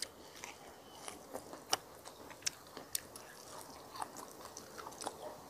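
A person chewing food: faint, scattered mouth clicks and smacks about once every second.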